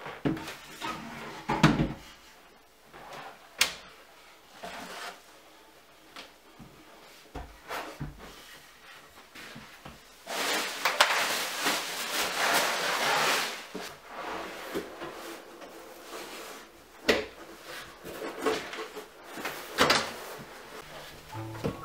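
Scattered knocks and bumps of new wooden furniture being handled and set down, with a few seconds of plastic wrapping film rustling and crackling about ten seconds in.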